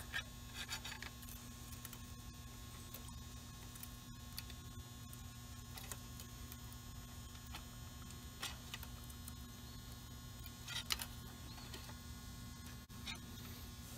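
Faint steady electrical hum, with a few scattered light metal clicks, the most prominent about eleven seconds in. The clicks come from a flathead screwdriver prying between the rotor and pad of a 2019 Honda CRF450RX rear brake caliper, pushing the caliper piston back in.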